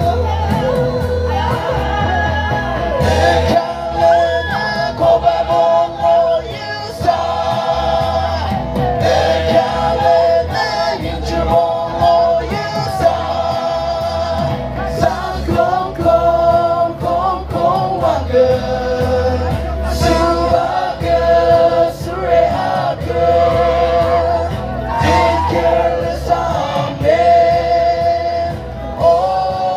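Several voices singing a song in harmony through microphones and a loudspeaker system, with a heavy bass line underneath.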